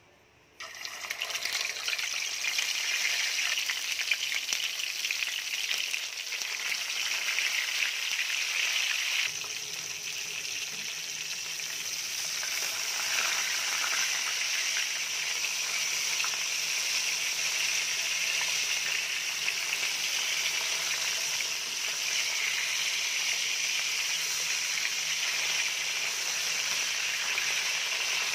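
Whole dalagang bukid (redbelly yellowtail fusilier) deep-frying in hot oil in a pan. The sizzle starts suddenly about half a second in as the fish goes into the oil and continues steadily, easing slightly after about nine seconds.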